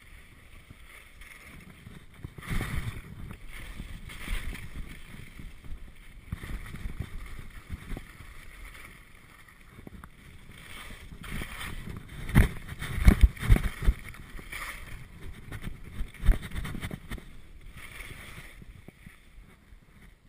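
Skis scraping and hissing over hard, bumpy snow at speed, with wind rushing on the microphone, the sound swelling and fading in surges. A cluster of heavy knocks and thuds comes about two-thirds of the way through, as the skis hit bumps.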